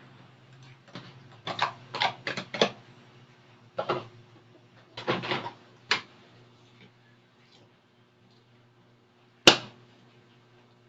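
Cooking utensil clacking and knocking against a soup pot in an uneven run of strokes while the vermicelli is stirred in, then a single sharp clack near the end.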